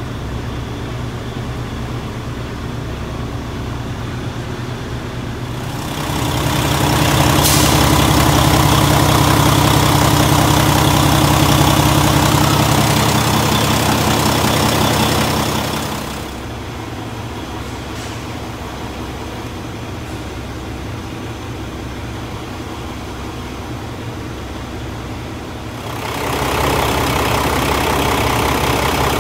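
Paccar MX-13 inline-six diesel engine idling steadily, run after a water pump replacement so the freshly refilled cooling system can burp out its air. It is louder for a stretch in the middle and again near the end.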